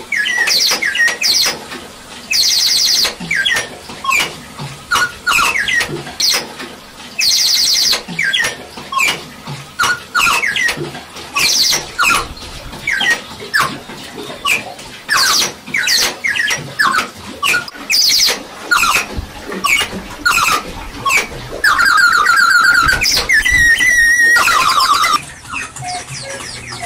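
Giant cuckoo clock's works sounding: a long run of short pitched notes, each with a mechanical clack, and a few brighter calls. Near the end comes a held tone that steps up in pitch and lasts about three seconds.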